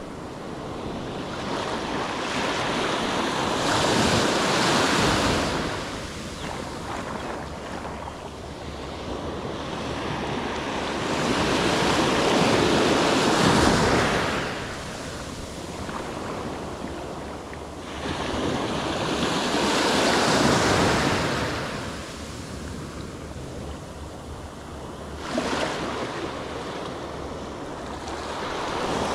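Ocean waves breaking on the beach, the surf rising and falling in big surges about eight seconds apart, with wind rumbling on the microphone.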